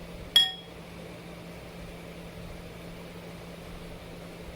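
A single sharp clink of a utensil against a bowl about half a second in, ringing briefly, followed by a steady low hum.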